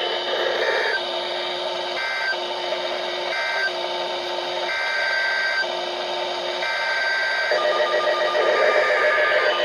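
NOAA Weather Radio Emergency Alert System data bursts: short, repeated screeching digital tones that announce a new warning. About three-quarters of the way through, a pulsing alert tone starts and keeps going.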